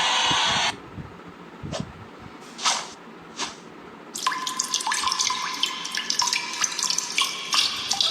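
Water splashing and dripping: three short swishes, then about four seconds of dense trickling with many quick pitched drops that stops suddenly at the end. A loud cheering crowd cuts off in the first moment.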